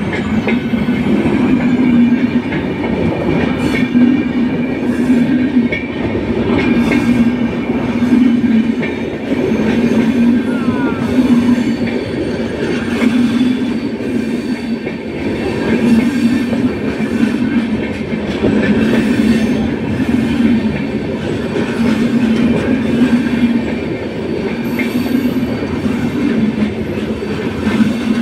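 Indian Railways express train coaches rolling past close by, their wheels clattering over the rails. The rumble swells in a regular beat about once every second and a half.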